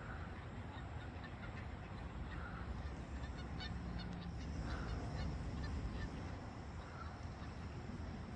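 Waterfowl calling faintly about every two seconds, with scattered short high chirps in between, over a steady low rumble.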